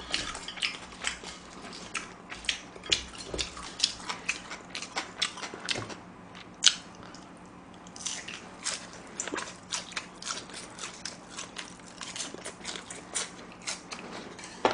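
Close-miked crunching and chewing of battered fried squid: a quick run of crisp bites and mouth clicks, with a short lull in the middle.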